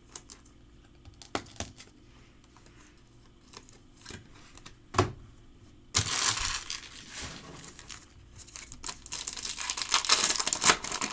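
A few light clicks of trading cards being handled, then, about six seconds in, a foil card-pack wrapper torn open and crinkled, the crackling growing again near the end.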